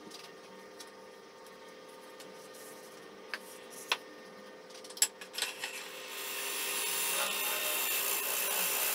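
Wood lathe running with a steady motor hum and a few sharp knocks. From about six seconds in, a turning tool cuts into the spinning algarrobo wood at the vase's base, a louder steady scraping that stops suddenly at the end.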